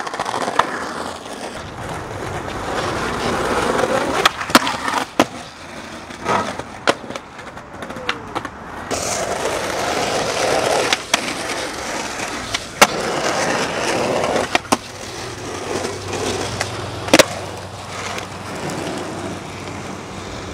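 Skateboard wheels rolling over rough pavement and concrete, with several sharp clacks of the board striking the ground.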